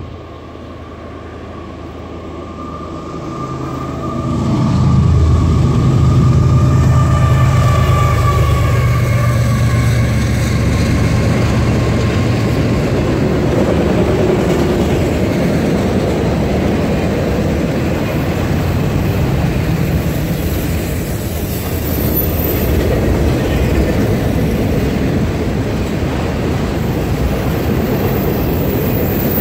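Diesel locomotives leading a freight train approach and pass close by, their engines droning, loud from about five seconds in, with a high whine that drops in pitch as they go. After that, autorack cars roll by with steady wheel-on-rail noise.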